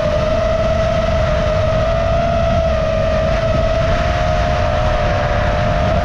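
Small FPV quadcopter's brushless motors whining at a near-steady pitch, heard close up from the onboard camera. Low wind rumble on the microphone sits underneath.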